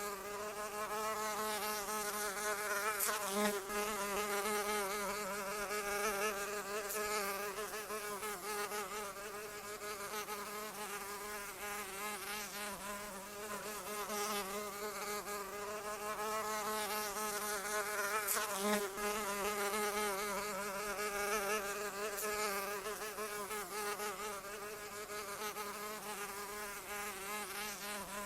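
A flying insect's wings buzzing continuously, a steady drone whose pitch wavers slightly as it moves about, swelling briefly twice.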